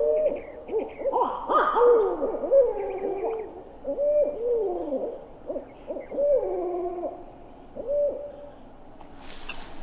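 Barred owls caterwauling: a long run of hoots that rise and fall in pitch, several calls overlapping, thinning out about eight seconds in.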